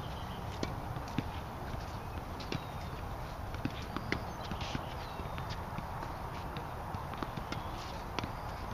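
Tennis balls bouncing on a hard court and struck by rackets: scattered sharp pops at irregular spacing, over a steady background hiss.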